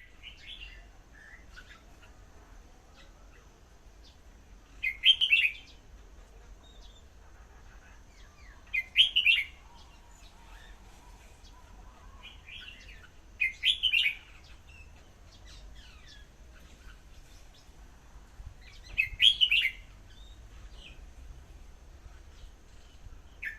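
Red-whiskered bulbul singing: a short, loud warbled phrase about every four to five seconds, five times, with softer chirps in between.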